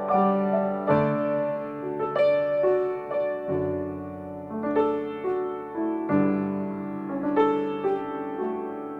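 Piano playing unhurried chords and melody notes, each struck and left to ring, with no singing: the instrumental close of a worship song.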